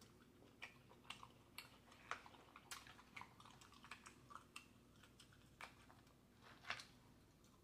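Quiet, close-up chewing with the mouth working: a string of soft, irregular wet clicks and lip smacks, the loudest a little before the end.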